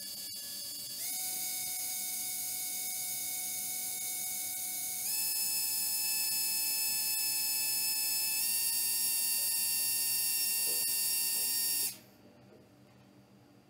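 Small propeller fan of a blö micro cooling device running with a high-pitched motor whine. The pitch and loudness step up three times as it is switched to higher speeds, and it cuts off suddenly near the end.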